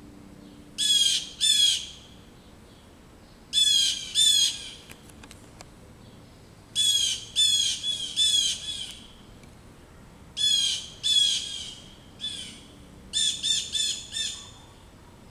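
Blue jays giving harsh, downslurred 'jay' alarm calls in bursts of two to five, every few seconds: mobbing calls at a perched osprey.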